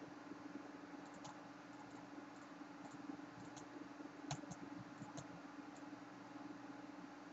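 Quiet room tone with a steady low hum and a handful of faint computer mouse clicks, the sharpest about four seconds in.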